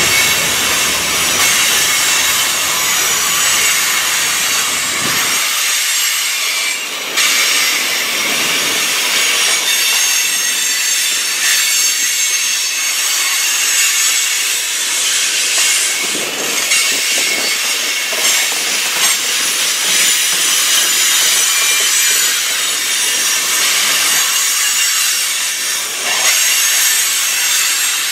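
Loaded freight cars (tank cars and covered hoppers) of a manifest train rolling past on steel wheels, a continuous high-pitched squeal and hiss of wheels on the rails.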